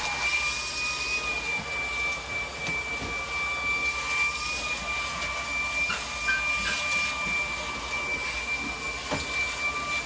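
Cordless stick vacuum cleaner running steadily, a high whine over a rushing hiss as it is pushed over a rug.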